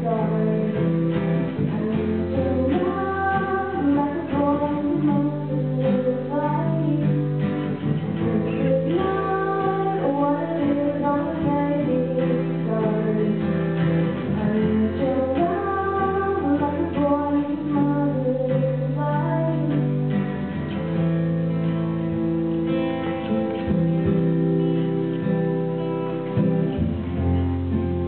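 Two acoustic guitars strummed together, with a girl singing a melody over the chords.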